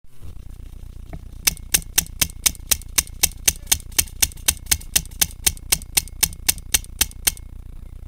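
Paintball marker firing a steady string of sharp shots, about four a second and evenly spaced, starting about a second and a half in and stopping about a second before the end.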